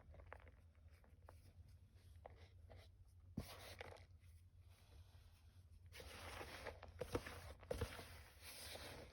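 Reformed gym chalk being rubbed and crushed by hand: faint scratching at first, then a longer stretch of gritty crunching in the second half with a few sharp cracks.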